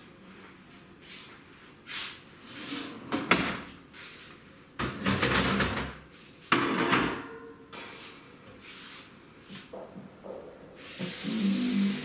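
Kitchen clatter: items being handled on the worktop and a drawer or cupboard knocking open and shut, with a few louder clunks about 3, 5 and 6.5 seconds in. Near the end a steady hiss with a low hum starts.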